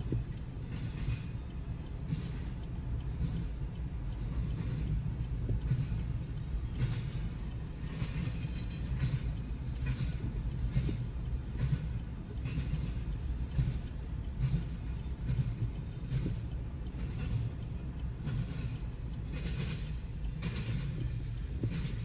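Freight train rolling past, a steady low rumble with a run of repeated clacks as the wheels cross rail joints.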